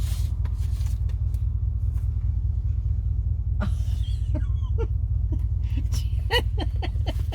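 Car engine idling, a steady low rumble heard inside the cabin. From about halfway through, a paper envelope is torn and rustled open.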